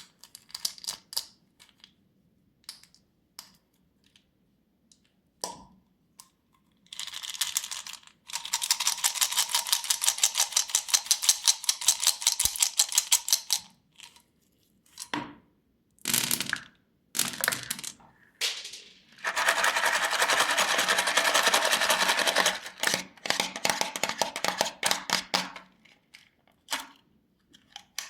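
Candy and its shiny plastic wrappers being handled: scattered clicks and taps, and two long runs of rapid, even crackling.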